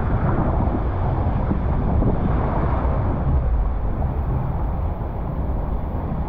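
A rider sliding feet-first around the bowl of a fibreglass water slide: steady rushing of water and body over the slide surface, with a heavy low rumble, easing a little near the end.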